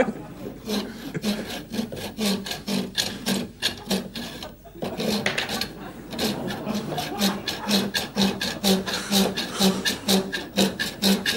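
A small hand saw worked back and forth, its blade rasping against the steel washer and wire of a handmade wire-figure candle holder. The strokes come in a regular rhythm, a little over two a second, with a short break about four and a half seconds in.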